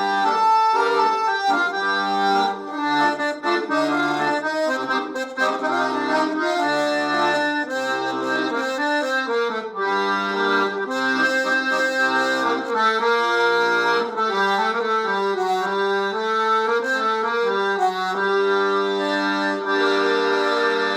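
Instrumental Middle Eastern-style music led by an accordion playing a moving melody over chords, with short bass notes underneath. Near the end it settles into long held chords.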